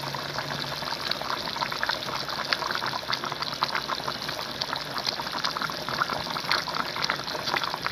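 Pork stew in tomato sauce and coconut milk boiling in a pan, a steady dense bubbling made of many small pops.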